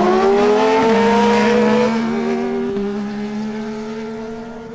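Two sport motorcycles, a Yamaha MT-09 three-cylinder and a Yamaha R6 four-cylinder, accelerating flat out down a quarter-mile drag strip. Engine pitch climbs and drops at each upshift, about three shifts in the first three seconds, then the engines fade as the bikes pull away.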